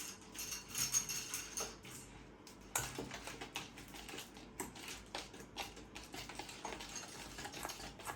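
Whisk clicking and scraping against a mixing bowl as melted butter is stirred into egg beaten with powdered sugar: a run of light, irregular clicks.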